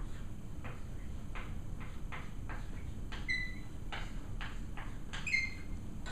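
Chalk writing on a chalkboard: a run of short strokes, about two a second, with two brief high squeaks from the chalk, about three seconds in and again about five seconds in.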